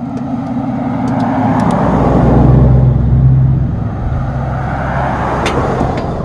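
A motor vehicle driving past, its engine rumble and road noise growing louder to a peak a few seconds in and then slowly fading.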